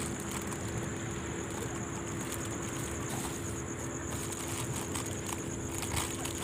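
Steady night ambience: a constant low hum of distant machinery, with a high, evenly pulsing insect trill above it.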